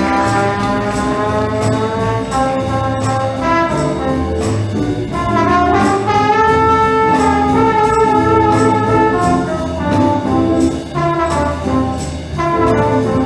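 Brass-led band playing a swing tune, trombones and trumpets sustaining chords that change every second or two over a steady beat.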